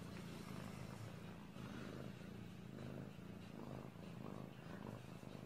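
A domestic cat purring quietly and steadily while it licks out a yogurt pot, with soft licking sounds repeating every half second or so.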